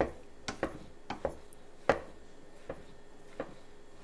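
Meat masher pushed down into boiled potatoes in a stainless steel pot, mashing them: a string of short, irregular knocks and squishes, roughly two a second, the strongest near the middle.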